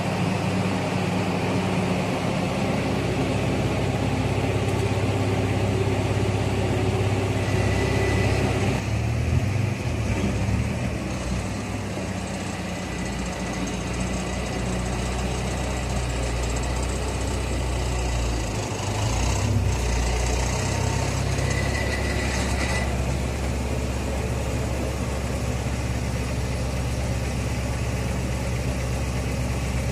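A car engine idling steadily, its low hum shifting in pitch twice, about a third of the way in and again near the middle.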